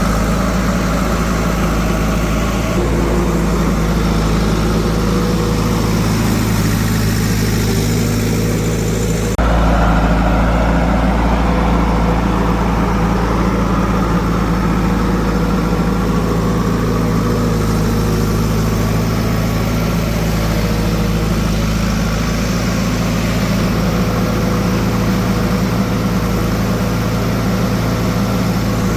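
Heavy diesel machinery engine running steadily, a continuous low drone. The sound changes abruptly about nine seconds in and gets slightly louder and deeper.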